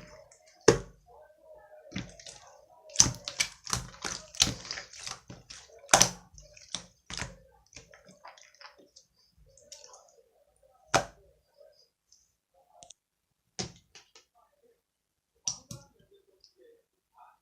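Slime being squeezed and poked by hand, giving irregular sticky clicks and pops, a handful of them sharp and loud, with softer crackling between.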